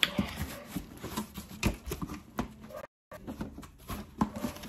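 Irregular taps, knocks and rustling from a cardboard gift box being handled and moved about. The sound cuts out completely for a moment about three seconds in.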